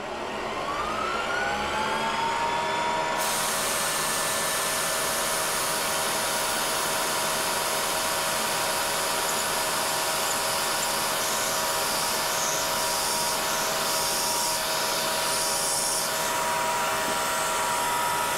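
CNC Bridgeport mill's spindle spinning up with a rising whine over the first couple of seconds, then running at steady speed while machining holes in stacked aluminum sheet parts. A steady hiss from the mist coolant nozzle joins about three seconds in.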